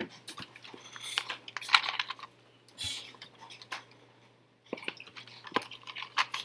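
Computer keyboard being typed on: irregular runs of key clicks, with a lull in the middle before the typing starts again.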